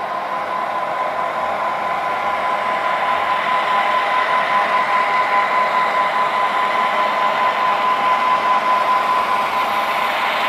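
Several sound-equipped HO-scale EMD road-switcher diesels running together, their onboard speakers giving a steady diesel engine drone over motor and wheel noise. It grows gradually louder as the locomotives approach.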